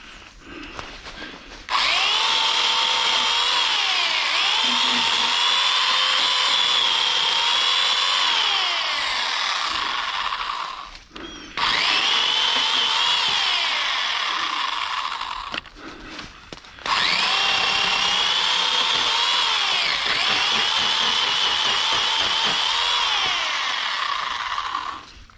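Chainsaw cutting wood in three long runs, its steady whine dipping in pitch and recovering as the chain loads up in the cut.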